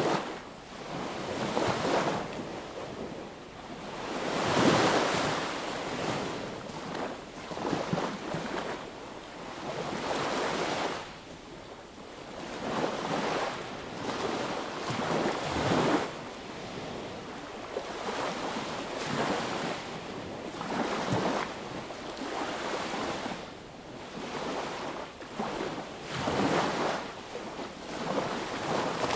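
Small sea waves breaking and washing up a beach, a new surge every few seconds, some stronger than others.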